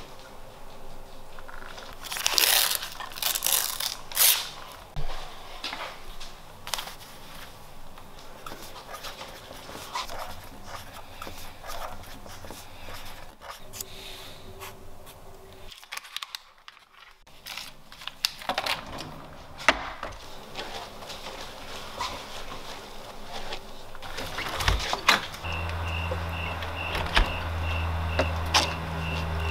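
Scattered small knocks, clicks and rustles of someone moving about and handling things, with a short drop to near silence about halfway through. In the last few seconds a steady low hum starts, with a high beep repeating about three times a second over it.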